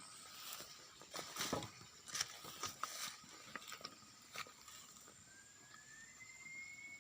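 Night insects holding a steady high-pitched drone, with a fainter whistle-like tone that slides upward near the end. About a second in, a run of sharp clicks and rustles lasts some three seconds and is the loudest sound.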